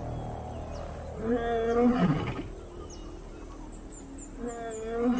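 Lion calling twice, about three seconds apart: each is a long moaning roar that ends in a falling glide.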